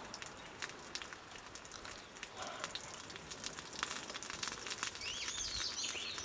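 Faint, irregular crackling and ticking from a small campfire with rabbit frying in lard in a pan. About five seconds in, a bird calls with a run of quick, warbling chirps.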